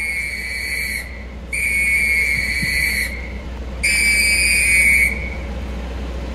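Three long whistle blasts, each held at one steady high pitch for about a second or more, with short gaps between; the first is already sounding at the start.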